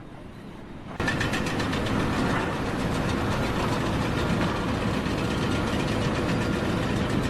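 An engine running steadily, cutting in suddenly about a second in.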